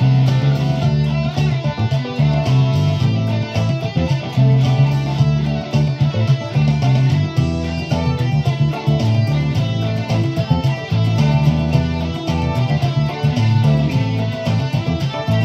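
Electric guitar playing a boogie tune over a backing track, with a steady pulsing bass line and a regular drum beat underneath.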